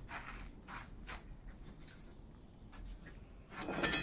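Blacksmith's tongs and steel bar worked in a coal forge fire: a few short scrapes and clicks of metal on metal and coals, then a louder metallic clink near the end that rings briefly.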